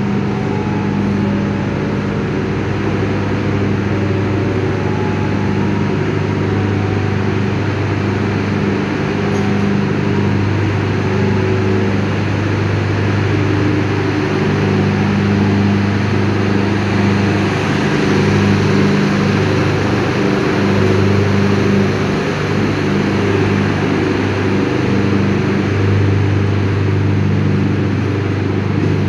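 Steady, loud diesel drone of a passenger train standing at the platform, its engines idling.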